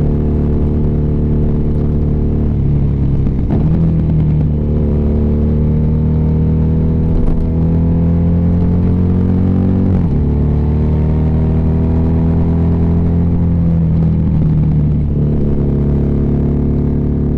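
BMW R nineT's air/oil-cooled boxer twin running under way. The engine note climbs slowly under acceleration, then drops sharply about ten seconds in as it changes gear, with shorter dips and recoveries around three seconds in and near the end.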